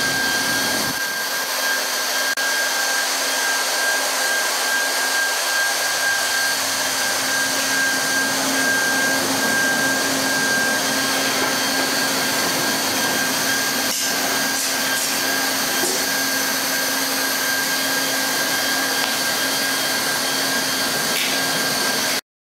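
Leister hot-air plastic welding gun running, its blower and heater giving a steady blowing hiss with a thin steady whine; it cuts off suddenly near the end. The tool is used to heat-weld the seams of vinyl sheet flooring.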